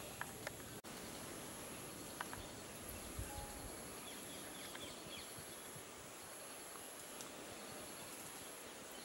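Steady outdoor background hiss with a thin, high insect drone that breaks off and resumes several times, and a few faint clicks.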